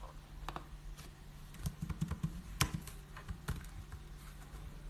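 Scattered keystrokes on a computer keyboard: irregular light taps, several bunched together near the middle, over a faint low steady hum.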